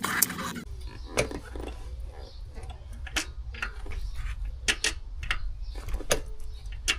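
Irregular sharp metallic clicks and taps from hand tools working on a motorcycle's gear-shift lever linkage, half a dozen spread out over a steady low hum. A noisier sound cuts off about half a second in.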